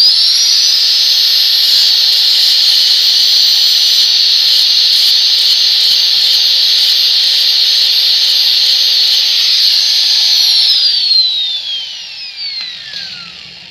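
Electric angle grinder switched on with a quick rising whine and run at steady speed for about ten seconds, grinding the metal around a broken exhaust stud on a motorcycle cylinder head flat, then switched off and winding down in a long falling whine.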